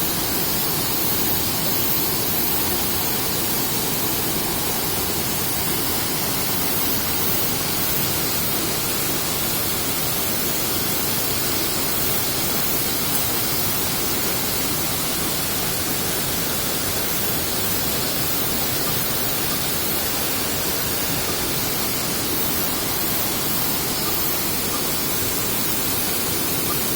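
Minoh Falls, a tall waterfall, pouring steadily: an even, unbroken rush of falling water.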